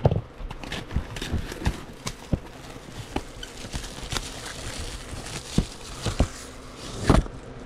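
Trading-card box being opened and handled by hand: irregular clicks, taps and knocks of the packaging, with a louder knock at the start and another about seven seconds in.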